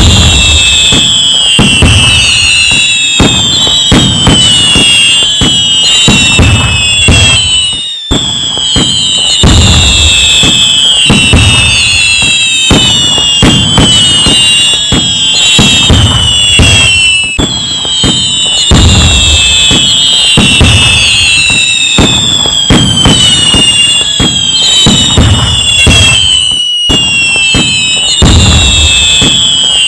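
A continuous fireworks display: many overlapping whistles sliding down in pitch over a dense run of bangs and crackles. The same stretch repeats about every nine or ten seconds, with brief dips between repeats.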